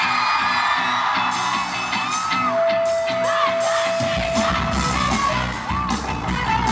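Live rock band playing: electric guitar with gliding, bending notes over a rhythmic backing. A heavy low end of bass and drums fills in about four seconds in.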